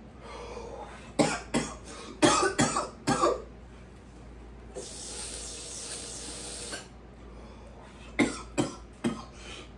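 A man coughing hard in two fits after inhaling a dab of concentrate vapor from a glass rig: several sharp coughs from about one to three seconds in, and a few more near the end. Between the fits there is a long, breathy hiss.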